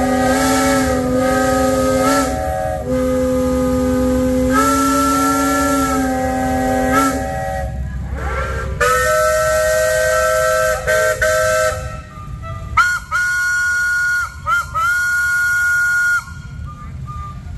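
Steam whistles blowing a series of long blasts, each sounding several tones at once like a chime whistle, with short breaks and a different chord from one blast to the next, over a hiss of steam. The last and highest blast cuts off about a second and a half before the end.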